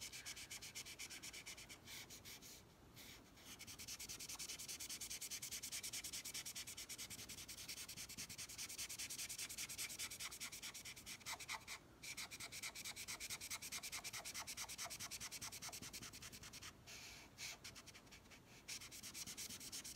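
Felt-tip marker rubbed quickly back and forth on paper while colouring in a square: a steady scratchy rasp of rapid strokes, broken by a few short pauses.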